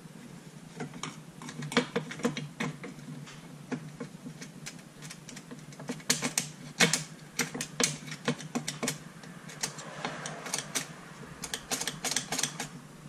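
Irregular plastic clicks and knocks as a chainsaw's plastic top cover is pressed and fitted back onto the saw, coming in quick clusters about six seconds in and again near the end.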